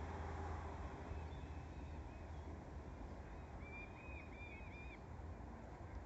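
Wind buffeting the microphone as a low, steady rumble. A bird chirps a quick run of short, arched notes about four seconds in.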